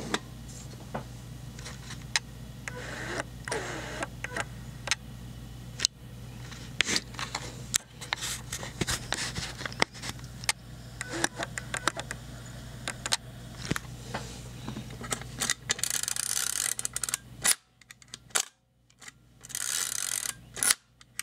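Zenit 35mm SLR being cocked and test-fired by hand, with its bottom plate off: a run of sharp mechanical clicks and ratcheting from the wind-on and the cloth focal-plane shutter. The firing checks whether a newly re-tensioned shutter curtain now runs at the right speed.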